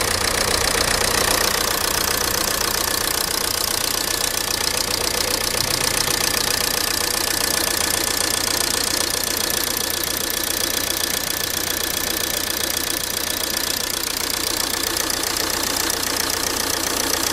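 Ford TDCi diesel engine idling steadily with its diesel clatter; the engine is shaking at idle.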